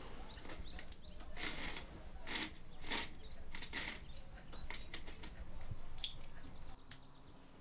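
A run of short scraping and rustling handling noises with small clicks in between, the loudest four coming in the first half. A low hum underneath cuts off near the end.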